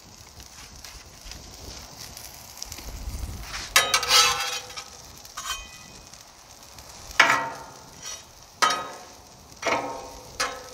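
Butter, brioche bread and onions sizzling quietly on a hot steel Blackstone flat-top griddle, broken by several short, sharp scrapes and clacks of a metal spatula on the griddle top as the bread is moved.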